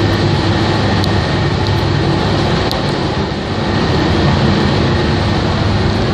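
Ferry engines running: a loud, steady drone with a low hum underneath.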